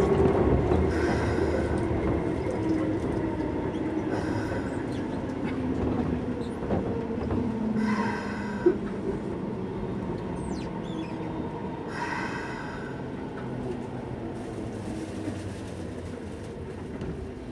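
Keisei 3400 series electric train heard from inside the car, its running and wheel-on-rail noise easing off as it slows into a station. A brief high squeal comes and goes about every four seconds.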